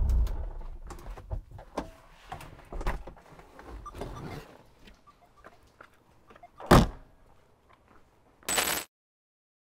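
A classic Mini's turbocharged engine dies away within the first second, leaving light clicks and rustles, then a single loud car-door thunk about seven seconds in and a short burst of hiss near the end.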